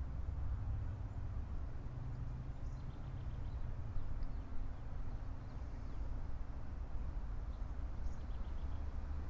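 Steady low outdoor background hum, with two faint bursts of high, quick chirping: one about two and a half seconds in and another about eight seconds in.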